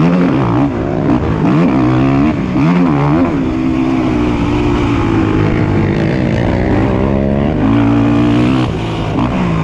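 Racing ATV engines revving up and falling off over and over as throttle is opened and closed, with a few steadier held stretches in between.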